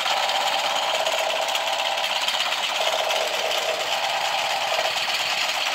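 Battery-powered light-up toy gun playing its electronic rapid-fire sound effect through a small tinny speaker: a continuous fast buzzing rattle.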